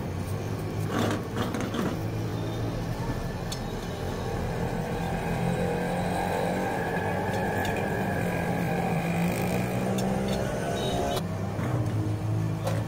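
A steady engine-like hum, with a few light clicks and scrapes of a steel spoon and a metal scraper against an iron appam pan as potato filling is spread.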